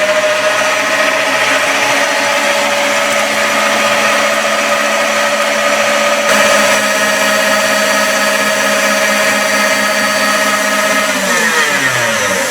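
Electric mixer running on high speed with its beaters whipping egg whites, a steady motor whine. Near the end the pitch falls as it is switched off and spins down.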